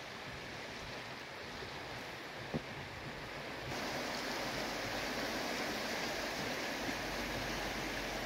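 Steady rushing of a flowing river, a little louder from just before halfway through. A single short click comes about two and a half seconds in.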